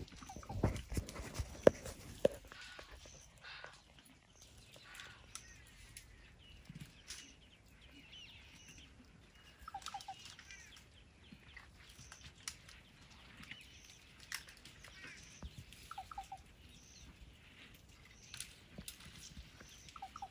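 Faint open-air ambience with short, repeated chirping bird calls every few seconds. A few sharp knocks come in the first two seconds.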